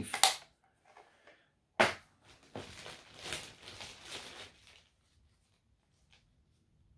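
Perfume samples and packaging being handled: a sharp click about two seconds in, then a couple of seconds of faint rustling and scraping.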